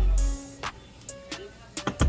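Background music with a heavy deep bass that drops out about half a second in, leaving a sparser, quieter passage with a few sharp clicks.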